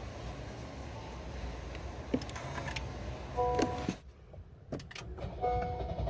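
Clicks from pressing the Honda N-BOX Custom's push-button ENGINE START/STOP switch, with short electronic beep tones from the car as it steps into accessory mode and then ignition-on, over a low steady rumble.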